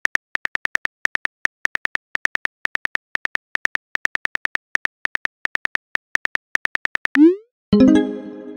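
Smartphone keyboard key clicks as a text message is typed, a quick even run of about five clicks a second. Near the end the clicks stop, a short rising swoosh plays as the message sends, and a brief pitched message tone follows.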